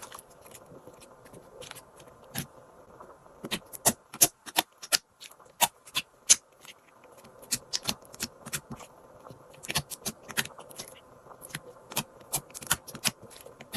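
Slime being squeezed and folded by hand, making irregular sticky clicks and pops. The clicks are sparse for the first few seconds, then come thick and fast.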